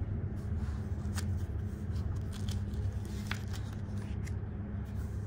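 Pages of a menu booklet being handled and turned, a few light paper rustles and clicks, over the steady low hum inside a railway dining car.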